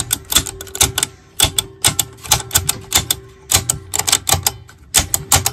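Rapid clicking of the 1939 Stewart Warner 5E1's push-button station selector keys as they are pressed over and over in quick clusters, working the switch contacts clean.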